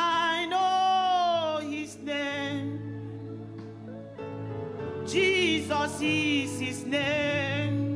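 A woman singing a slow gospel worship song into a microphone, in two long phrases with held notes and vibrato, over sustained keyboard chords.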